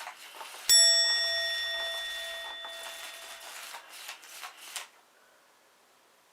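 A single bell-like chime strikes about a second in and rings away over about three seconds, among light rustles and taps.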